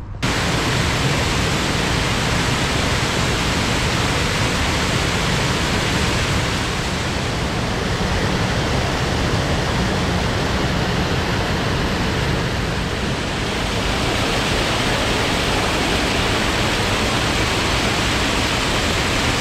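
River water rushing over rocks and pouring over a weir: a steady, unbroken rush of running water.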